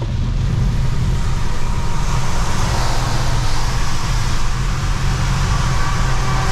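Car driving on a wet freeway, heard inside the cabin: a steady low road drone with the hiss of tyres and spray on wet pavement. The hiss swells for a couple of seconds around the middle.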